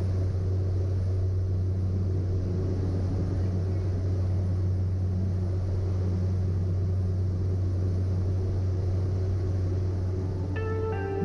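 Cessna 208 Caravan's PT6A turboprop engine and propeller at climb power, a steady low drone heard from inside the cockpit during lift-off and climb-out. Music comes in just before the end.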